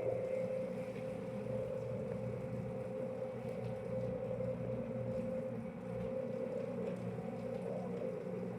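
A steady machine hum: a constant pitched whine over a lower drone, unchanging throughout.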